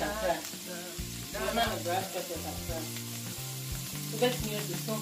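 Minced beef sizzling as it fries in a frying pan, under background music with a stepping bass line.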